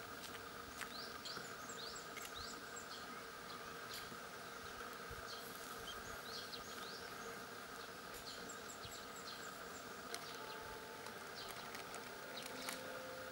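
Small birds chirping in quick runs of short rising notes, twice, over a faint steady hum, with a few light clicks.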